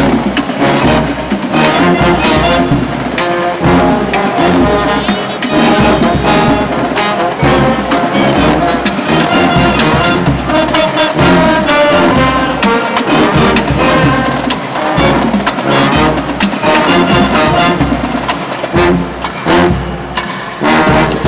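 High school marching band playing a loud brass tune, trumpets and trombones over a drum beat.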